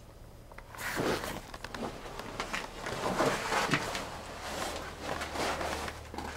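Irregular scuffs, rustles and light knocks of someone moving on foot through a cramped metal locomotive interior, starting about a second in.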